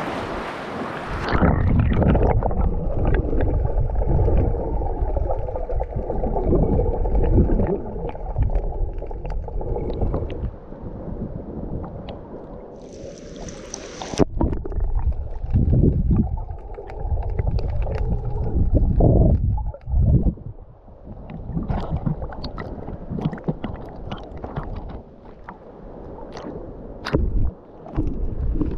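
Water sloshing and gurgling around an action camera dipping at the waterline, heard muffled and low as it goes under about a second in, with irregular swells and knocks of water against the housing.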